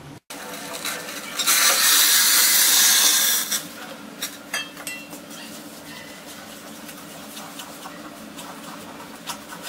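Hot water poured from a steel vessel into flour in a steel bowl, a loud hissing pour lasting about two seconds. It is followed by a couple of metal clinks and soft stirring of the wet flour.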